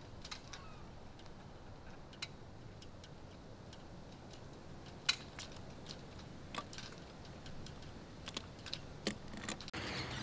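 Faint, irregular clicks and taps of small audio gear being handled, such as a handheld recorder's buttons and a boom pole's mic mount, over a low, steady outdoor hiss. The sharpest click comes about five seconds in.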